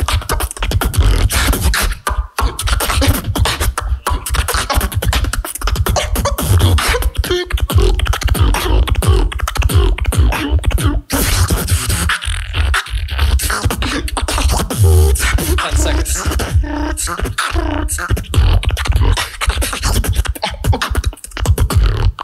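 Solo beatboxing through a microphone: fast vocal drum patterns with heavy bass kicks, snare-like clicks and short pitched vocal glides, stopping abruptly at the end.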